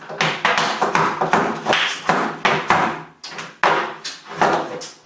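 Tap shoes striking a wooden tap board in quick rhythmic strokes, several a second. After about three seconds the strokes come sparser and more spaced out.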